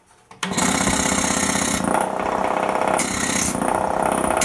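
An ABAC B2800 air compressor pump starts about half a second in and runs with a fast, steady mechanical rhythm, twice turning briefly louder and hissier. Since its reassembly it draws air in at its outlet instead of blowing it out, working as a vacuum pump, which the owner puts down to wrongly mounted valve plates.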